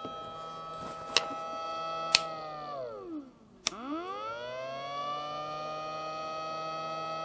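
Alphacool DC-LT 2600 ceramic 12 V pump motor running on the bench before it is filled with coolant, with a steady high whine. A couple of seconds in, a click cuts its power and the whine slides down and dies away. After another click the motor restarts and the whine rises back to steady.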